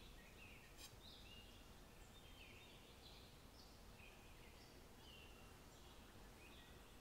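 Near silence: room tone with faint, scattered bird chirps.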